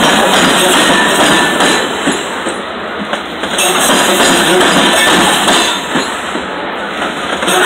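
Freight train of covered hopper cars rolling past close by: a loud, steady noise of steel wheels running on the rails, with some clicks and clanks from the cars.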